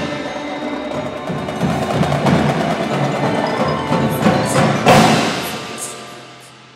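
Indoor percussion ensemble playing: marching snare, tenor and bass drums together with a front ensemble of marimbas and other mallet keyboards. A loud full-ensemble hit about five seconds in rings out and fades away.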